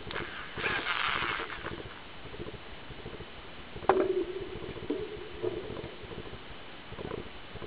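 A cordless drill being handled on a tabletop: a rustling scrape about a second in, then a sharp knock just before four seconds as it is laid down on the table, followed by a short steady hum lasting about a second and a few lighter knocks.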